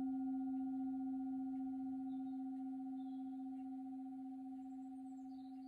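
Tibetan singing bowl tuned to C, ringing out with a steady low hum and a fainter higher overtone, slowly dying away. Faint brief high chirps come in about two seconds in and near the end.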